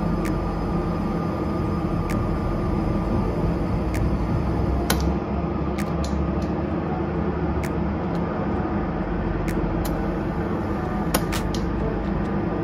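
Steady drone of running machinery on an airport ramp, with sharp clicks every second or so at irregular intervals.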